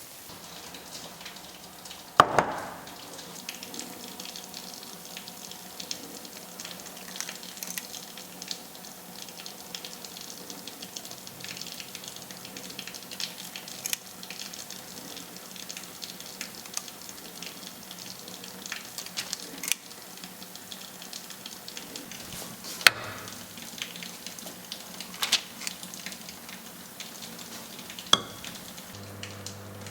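Kitchen work: a steady soft crackling hiss with scattered sharp knocks and clinks of utensils, the loudest about two seconds in and a few more near the end.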